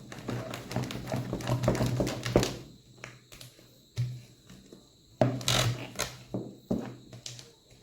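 Thick bread batter being beaten by hand in a mixing basin, the utensil knocking and scraping against the sides in irregular strokes. The strokes come in two spells, the first about two and a half seconds long, then a pause with a single knock, then a second shorter spell.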